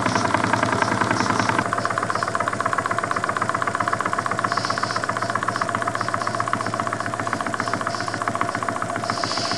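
Cotswold Heritage Perseus model horizontal steam engine running smoothly on live steam, its rapid, even exhaust beats over the steady rush of the gas burner under the boiler. The sound drops a little about one and a half seconds in.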